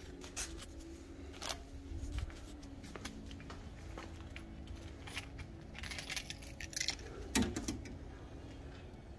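Light metallic clinks and rattles of small objects being handled, scattered short clicks with a quick cluster of them about six to seven seconds in. A single thump about seven and a half seconds in is the loudest sound.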